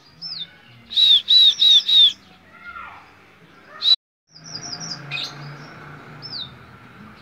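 Male strawberry finch (red avadavat) calling: a quick run of four loud, arched chirps about a second in, then scattered single chirps and a short, fast high trill. The bird is in breeding condition, so it calls almost nonstop.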